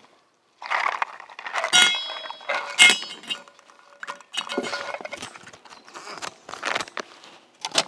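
Ice cubes sliding out of one stainless steel bowl and dropping into another, clinking, with the metal bowls ringing briefly at the loudest knocks a couple of seconds in. After that comes a plastic bag rustling as it is handled.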